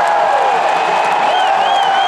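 Large stadium crowd cheering and yelling steadily, with long high-pitched whistles sounding above it.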